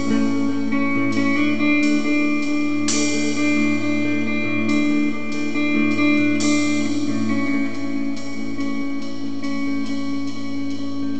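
Electric guitar playing chords and notes that are struck and left to ring, a new one about every second or two.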